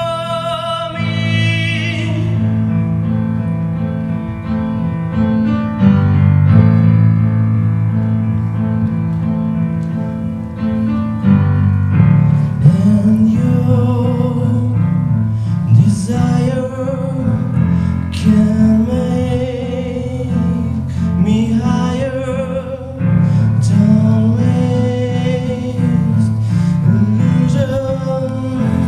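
Live song: a man singing to his own grand piano accompaniment, the piano playing sustained chords.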